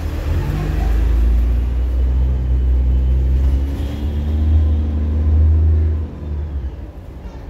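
Single-deck bus's diesel engine heard from inside the cabin, pulling away with a deep rumble that rises in pitch as it accelerates, then the engine note drops away about six seconds in.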